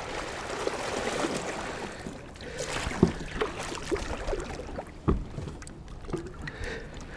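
Water splashing and sloshing around a fishing kayak, with two sharp knocks against the boat about three and five seconds in and a few lighter clicks.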